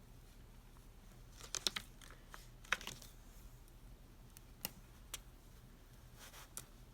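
Thin sheet of iron-on transfer being handled: faint crinkling with a few sharp clicks at scattered moments, the loudest a pair of clicks about one and a half seconds in and another near three seconds.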